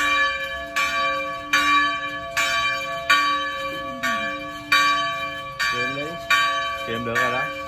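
Large church bell being rung in a steady swing, struck about once every 0.8 seconds, each stroke ringing on into the next so a humming tone carries between strikes.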